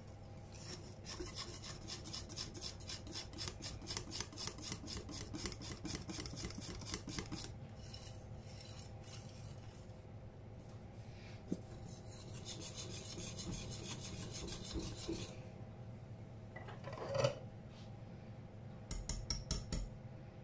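Wire whisk beating thick chocolate cake batter in a glass bowl, its wires scraping the bowl in quick rhythmic strokes, about four or five a second. The whisking comes in two spells with a pause between, then a single louder scrape and a short fast flurry near the end.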